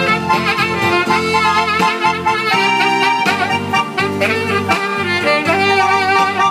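Saxophone playing a melody of held notes with vibrato over electronic keyboard accompaniment.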